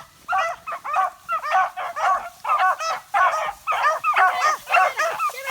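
Hunting dogs yelping in a rapid, unbroken string of short, high calls, about three or four a second, worked up over a freshly shot rabbit.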